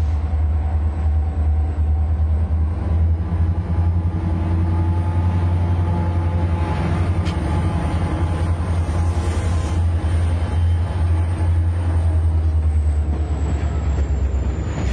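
Diesel locomotive engine running steadily as the train rolls by, a loud, deep drone with layered engine tones above it.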